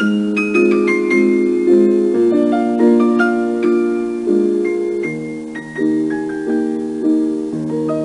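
Background instrumental music: held keyboard chords under a melody of struck notes, each fading after it is played.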